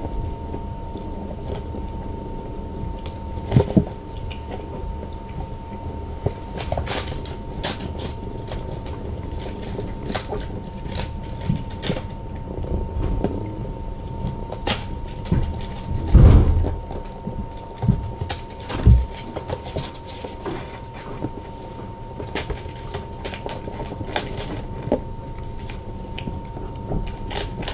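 Steady background hum with a thin constant whine, under scattered light taps, knocks and rustles of kittens playing among toys and a cardboard box; a louder thump comes about 16 seconds in.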